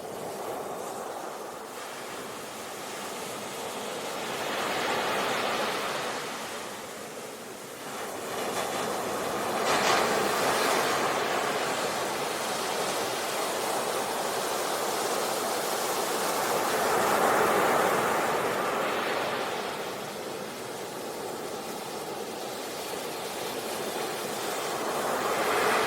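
Ocean surf: waves breaking and washing in, a steady rush that swells and eases about four times.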